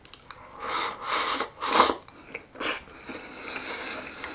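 A person eating rice topped with raw egg and mentaiko nametake from a bowl held at the mouth, shovelling it in with chopsticks. A few short noisy slurps come in the first three seconds, followed by softer chewing.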